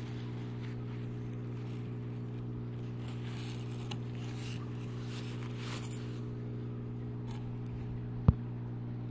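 Soft rustling of a cloth snake bag and a styrofoam-lined cardboard box being handled, with a single sharp click about eight seconds in. A steady low electrical hum runs underneath.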